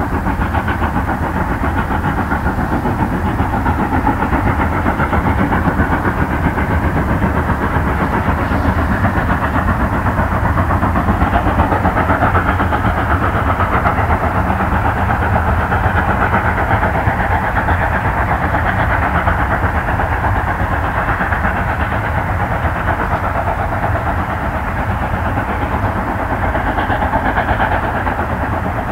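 Class 52.80 steam locomotive running with a freight train: a loud, steady mix of steam exhaust and rail running noise that holds without a break.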